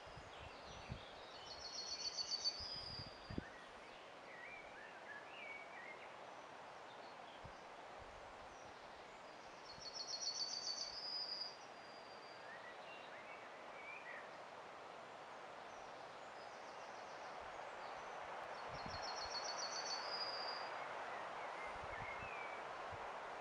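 A songbird singing the same short, high trilled phrase three times, about every eight to nine seconds, with fainter chirps from other birds in between, over a steady outdoor background hiss.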